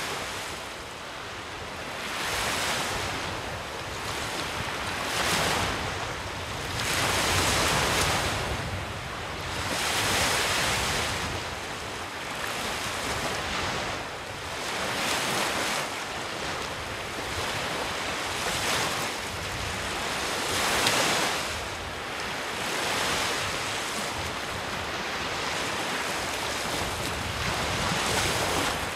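Lake Michigan waves washing onto a shore, swelling and falling away every two to three seconds.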